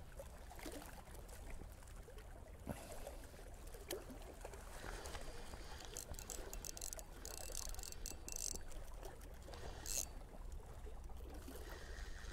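Faint lapping and trickling of water at the shoreline over a steady low rumble, with a few small clicks and short splashy bursts in the second half.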